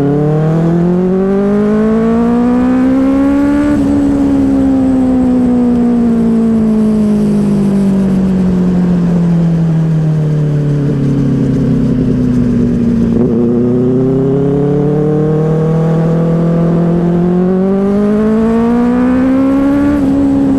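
Benelli 600i's inline-four engine pulling the motorcycle along, its revs climbing for about four seconds, then dropping slowly as the bike rolls off, then building again near the end.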